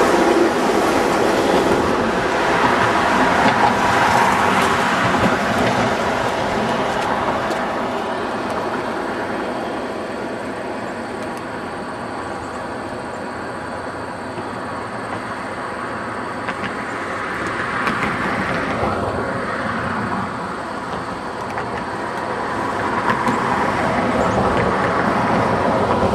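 Amtrak passenger train cars rolling past on the rails with a rushing wheel noise and some clickety-clack. The sound eases as the rear of the train draws away, then the rushing swells again over the last few seconds.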